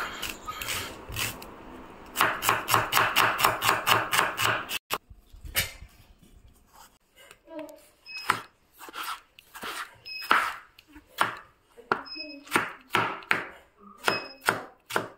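Kitchen knife chopping on a plastic cutting board: a fast run of strokes, about five a second, dicing red onion. After a short break come slower single strokes, roughly one or two a second, cutting tomato.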